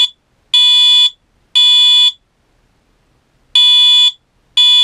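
Wheelock MT multitone fire alarm horn sounding its code-3 tone: loud, high electronic beeps of about half a second each, one a second, in threes with a pause of about a second and a half between sets. This is the temporal-three pattern used as the fire evacuation signal.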